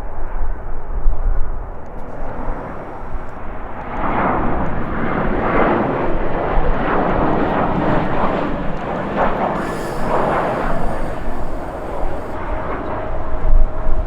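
Jet airliner engines heard passing, their noise swelling about four seconds in and rising and falling in waves, with strong gusting wind buffeting the microphone.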